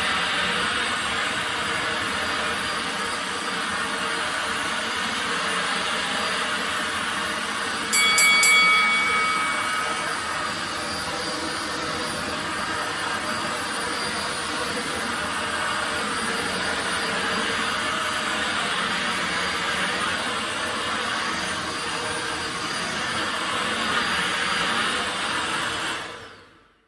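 Bosch Unlimited 7 ProHygienic Aqua cordless stick vacuum running with a steady rushing whine. A brief high tone sounds about eight seconds in, and the sound fades out near the end.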